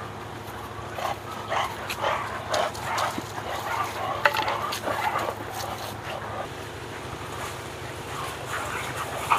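Two young bullmastiffs play-wrestling, giving short dog vocal sounds scattered through the first six seconds or so.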